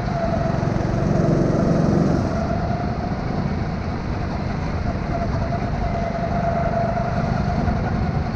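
Indoor racing kart's engine running at speed, heard from onboard, with tyre and rushing noise. The engine note eases a little over two seconds in and builds again in the second half as the kart comes out of the corners.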